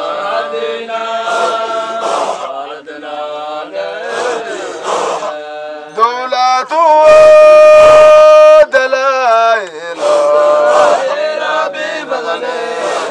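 Group of men chanting a Sufi Qadiriya dhikr together in long sung phrases. About seven seconds in, one voice holds a single loud note for a second and a half.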